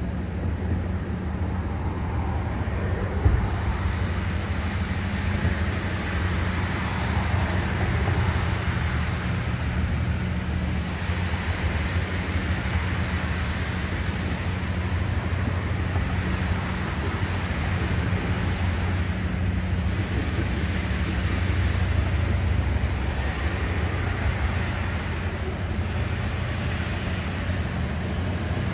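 Locomotive running steadily: a low rumble under a continuous hiss, with one sharp knock about three seconds in.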